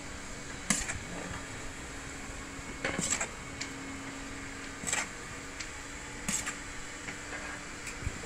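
A steady low hum with sharp clinks or knocks every second or two, about six in all.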